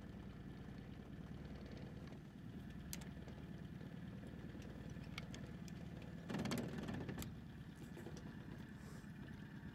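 Faint steady hum of a boat's motor idling, with a few light clicks and a brief louder burst of noise about six seconds in.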